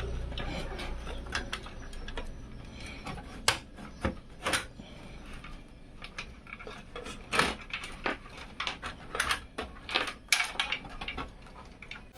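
Irregular light clicks and metallic taps, a dozen or more, some louder than others, like steel PC case panels and parts being handled and fitted.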